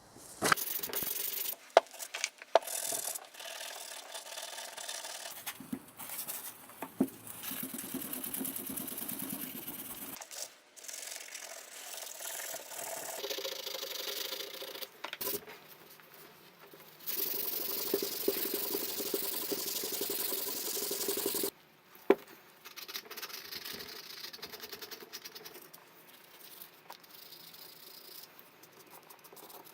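Hand rubbing and scraping on the grinder's metal parts in stop-start stretches of several seconds, with a few sharp clicks in the first seconds. In the second half a louder, steadier hiss runs for about four seconds and cuts off suddenly.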